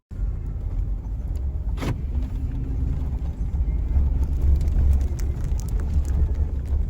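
Vehicle driving, a steady low rumble of engine and road noise, with a sharp knock about two seconds in and scattered small rattles.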